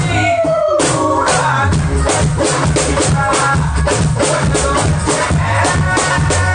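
Music with a steady drum-kit beat. In the first second a falling sweep and a brief drop-out in the upper range come before the full beat kicks back in.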